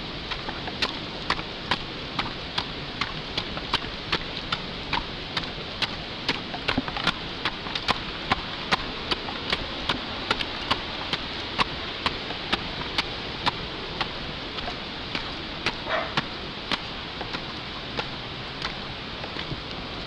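Steps on concrete stairs: regular sharp taps about two a second over a steady rushing noise, stopping a few seconds before the end.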